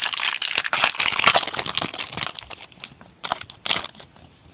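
Trading cards and their packaging being handled, crinkling and rustling densely for about two and a half seconds, then a few short rustles near the end.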